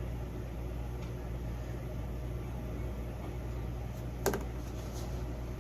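Steady low mechanical hum of room equipment, with one short sharp click a little past four seconds in.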